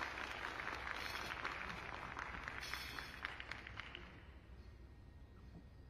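Scattered hand clapping from a small audience, many quick irregular claps that die away about four seconds in.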